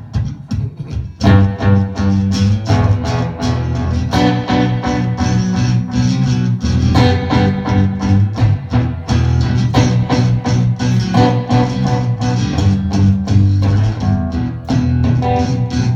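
Live band playing an instrumental passage of an acoustic set, with guitars and bass; the music thins out briefly at the start and the full band comes back in about a second in.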